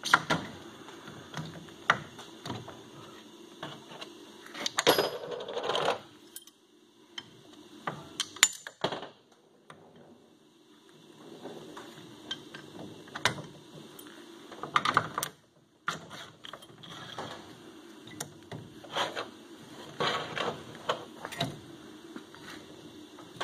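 Scattered metallic clinks and knocks from hand work on snowmobile rear-suspension parts: a coil-spring shock, bolts and washers being handled and fitted into the skid frame. There is a longer scraping rustle about five seconds in, and a faint steady hum underneath.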